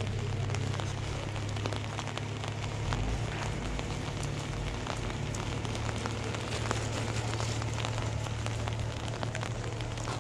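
Light rain falling on an umbrella overhead: many small, sharp drop ticks over a steady hiss, with a steady low rumble underneath.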